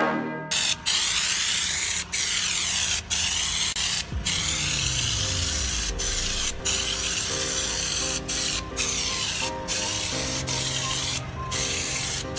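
Air-powered schutz gun spraying a textured "body"/bedliner coating onto a car's bodywork: a loud, steady hiss of compressed air and atomised coating, broken by short pauses every second or so.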